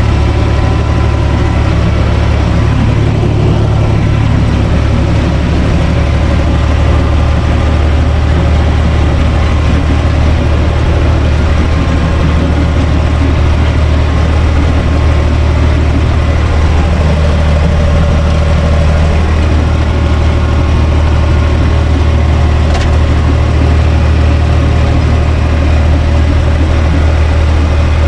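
UTB Universal 445 DT tractor's diesel engine running steadily at a constant speed, heard from inside the cab.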